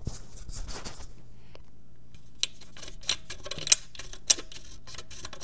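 Scattered sharp clicks and light rattling from the loose part in the middle of a Gotrax GXL V2 electric scooter's front wheel assembly. This looseness is the cause of the scooter's front-wheel noise, not the hub motor. The clicks grow louder and more frequent in the second half.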